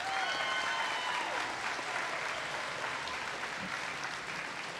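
A crowd applauding. Over the first second or so, one voice gives a long, high cheer above the clapping.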